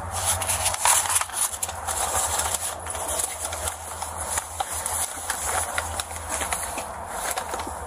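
Handling noise on an Axon Body 3 body-worn camera: rustling, scraping and scattered clicks as it shifts against the wearer's uniform, over a steady low hum. The clicks are loudest about a second in.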